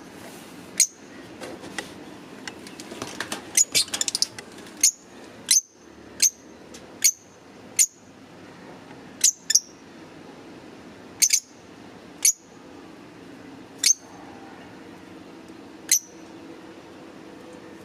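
Fischer's lovebirds giving short, sharp, high-pitched chirps one at a time, roughly every second, with a quick run of chattering calls about three to four seconds in.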